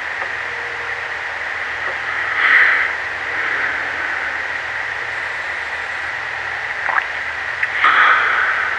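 Steady high-pitched night chorus in swamp forest, a continuous hissing drone that swells louder briefly about two and a half seconds in and again near the end, with a short faint call just before the end.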